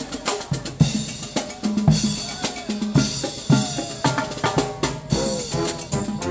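Marching band's drum cadence: snare and bass drum struck in a steady marching beat, about two beats a second.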